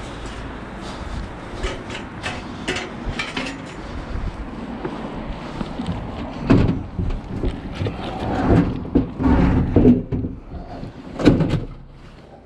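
Irregular knocks, clatter and heavy thumps of a load being carried and bumped down stairs, loudest in the second half.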